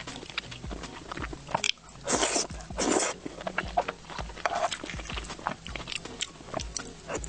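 Close-miked chewing of soft, fatty braised pork belly: a steady run of wet smacking and clicking mouth sounds, with two louder rushing noises about two and three seconds in.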